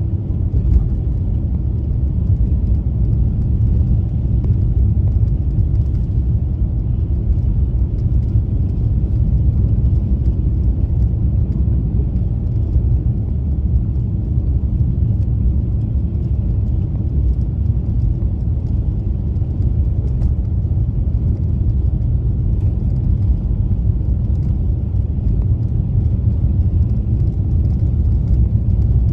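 Car driving on snow-covered streets: a steady low rumble of tyres and engine.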